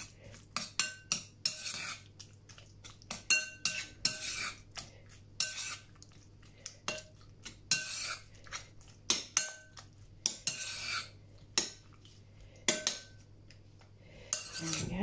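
A metal spoon stirring a thick spinach, ricotta and cream mixture in a ceramic bowl, clinking and scraping against the bowl at an uneven pace of one or two strikes a second. Many of the clinks leave a short ring from the bowl.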